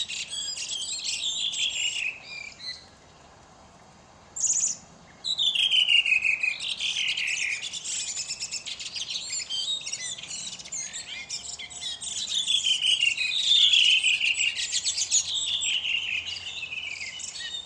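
Caged thrush singing: repeated phrases that slide downward in pitch, mixed with fast, high twittering, with a pause of about two seconds early on broken by one short call.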